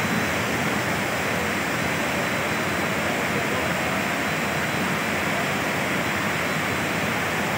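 Muddy floodwater rushing through a railway yard, a steady, even rush of water.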